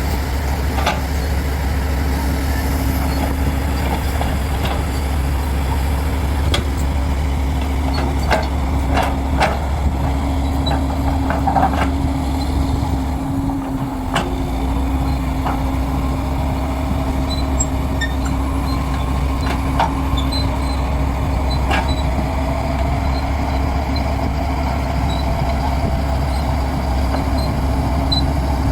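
Diesel engine of a heavy earthmoving machine (excavator or bulldozer) running steadily, with scattered sharp metallic clanks, most of them about a third of the way in.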